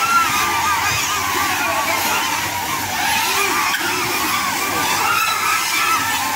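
Several drone-soccer ball drones (quadcopters in spherical cages) flying at once: a loud, overlapping buzz of propellers whose pitches keep sliding up and down as the drones speed up, brake and turn.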